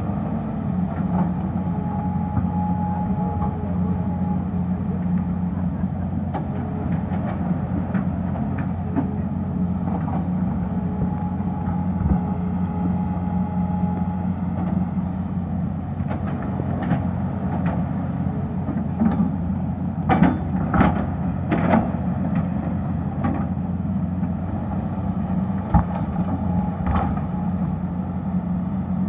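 Tata Hitachi excavator's diesel engine running steadily, with a faint high whine twice in the first half and three sharp knocks in quick succession about twenty seconds in.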